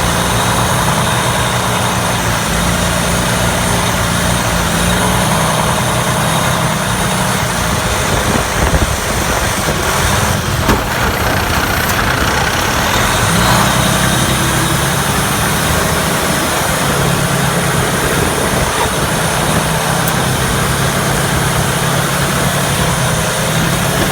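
Heavy truck's diesel engine running steadily, its note shifting for a few seconds around the middle, with a couple of short sharp knocks about nine and eleven seconds in.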